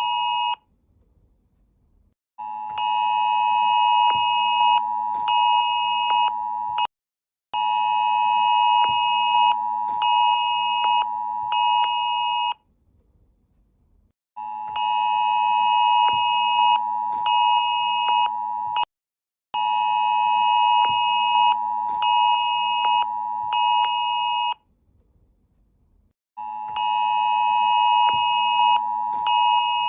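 Emergency-alert-style electronic alarm tone, a steady harsh pitch near 1 kHz. It sounds in blocks of about four to five seconds, cut by gaps that alternate between about half a second and about two seconds.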